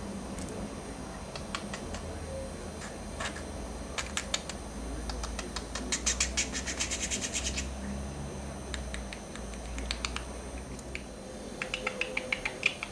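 Budgerigar at play: scattered sharp taps and clicks, then a fast run of rapid clicks about six to seven and a half seconds in, and a string of short chirps near the end.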